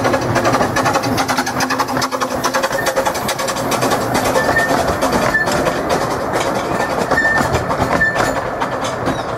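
15-inch-gauge steam locomotive passing close below, its exhaust and running gear making a dense, steady clatter. Brief high squeaks recur every second or so.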